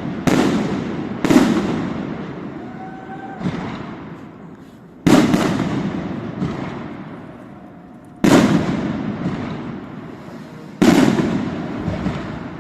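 Aerial firework shells bursting overhead: about six sharp bangs a second or more apart, one of them weaker, each followed by a long rolling echo that slowly dies away.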